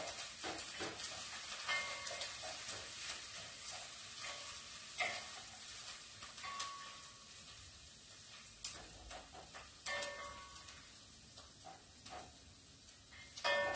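Chopped onions sizzling in oil in a pot, stirred with a wooden spoon that now and then knocks against the pot. The sizzle slowly grows quieter.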